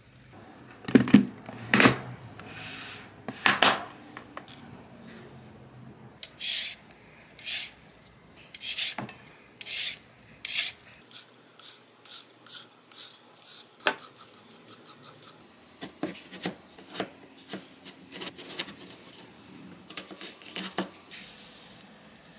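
A vegetable peeler scraping the skin off a Korean radish in short repeated strokes, at first about one a second and then about two a second. A few louder knocks come in the first few seconds.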